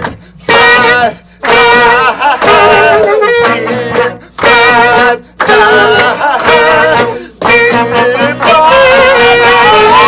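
Live acoustic punk song: a strummed acoustic guitar and a tenor saxophone playing held notes, with a voice shouting into the microphone. The band stops short several times and comes back in, in stop-start hits.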